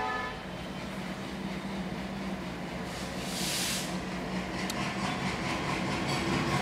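An ALCO WDM3A diesel-electric locomotive engine running with a steady low drone, as the locomotive begins shunting a rake. There is a short burst of hiss about three seconds in, and a faint even chugging rhythm starts near the end. The last note of a train horn cuts off right at the start.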